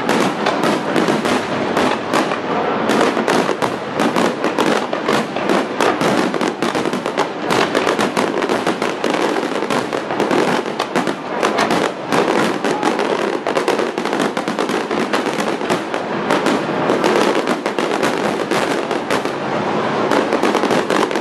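Aerial fireworks shells bursting in a dense, continuous barrage, many bangs overlapping with no pause.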